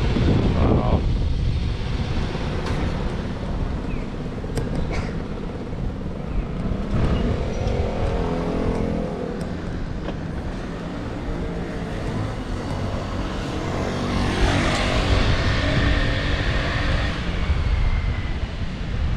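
Road traffic: motor vehicles running steadily in the street, with one passing close, louder, about three-quarters of the way through.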